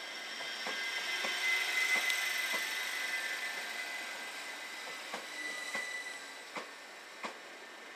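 Stansted Express Class 379 Electrostar electric train running past along the platform. A hiss and a high whine swell about two seconds in and then ease. The wheels click over rail joints at roughly even intervals throughout.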